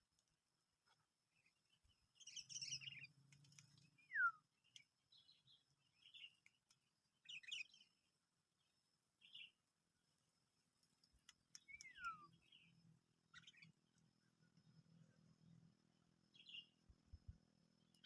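Faint bird calls: scattered short chirps and two clear whistle notes that fall in pitch, with a faint low hum joining in the second half.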